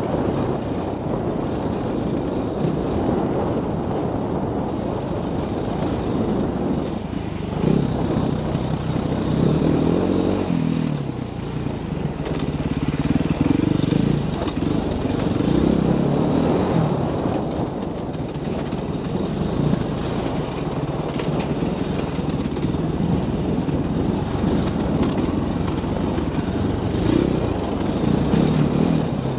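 Dirt bike engine running at low trail speed, its revs rising and falling as the throttle is worked, with several short swells of louder revving.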